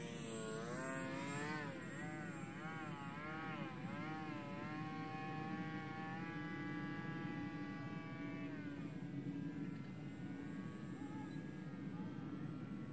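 Mini Funtana radio-controlled model plane's motor and propeller whining in flight, the pitch swinging up and down several times, then holding steady before dropping away about nine seconds in.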